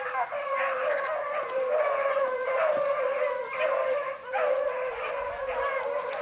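A pack of 15-inch male beagles baying as they run a rabbit track, several voices overlapping in an almost unbroken chorus.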